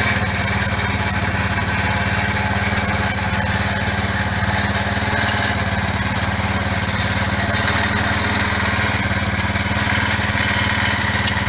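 A small engine running at a steady speed, driving a vehicle that tows a hitched load.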